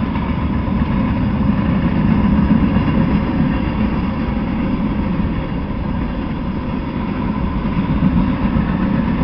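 Freight train cars rolling past: a steady rumble of steel wheels on the rails.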